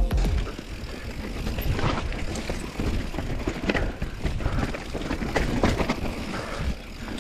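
Mountain bike descending a rough dirt trail: tyres running over dirt and roots with frequent knocks and clicks of chain and frame rattle.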